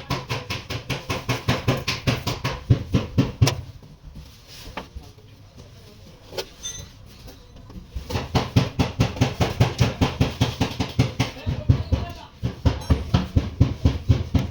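Rapid, even hammer blows on car-body sheet metal, about six a second, in two runs with a pause of a few seconds and a couple of single knocks between: panel beating out accident damage.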